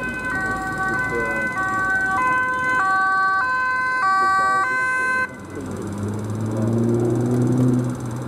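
Emergency vehicle's two-tone siren alternating between a high and a low note, which cuts off suddenly about five seconds in. The van's engine is then heard running as it drives up.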